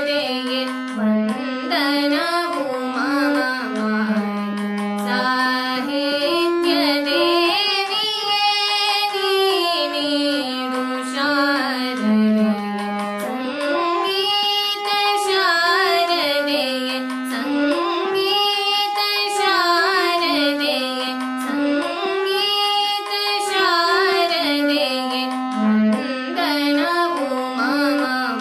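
A woman singing a Kannada devotional song (bhaktigeete) while accompanying herself on a harmonium. The harmonium's reedy notes step along with her melody without a break.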